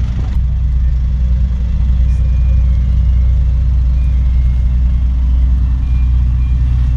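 Large diesel engines idling with a deep, steady rumble. A few faint, short high beeps sound now and then.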